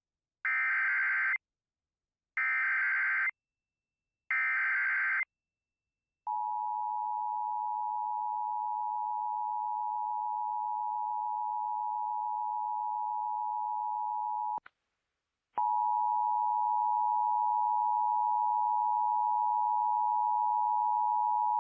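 Emergency Alert System header from a Sage ENDEC: three short screeching digital data bursts (the SAME header), then the steady two-tone EAS attention signal. The attention signal breaks off for about a second partway through and then resumes. Together they mark the start of an EAS alert, here the header and tone for a tornado warning.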